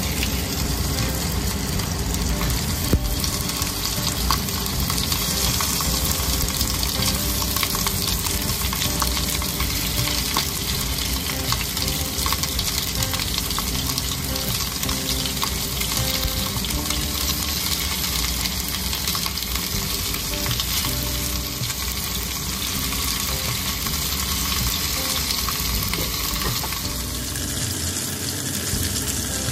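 Food frying in a hot pan, a steady loud sizzle, with a sharp knock about three seconds in.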